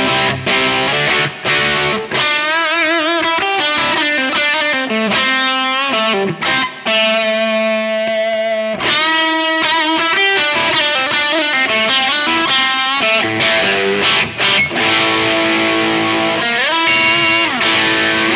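Overdriven electric guitar played through a NUX 63 Diamond, a Vox AC30-style overdrive pedal: chords at first, then single-note lead lines with vibrato, a long held note about halfway, quicker runs and chords, and bends near the end.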